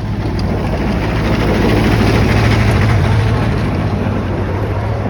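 A vehicle passing close by: a steady low rumble that swells to its loudest about halfway through, then eases off.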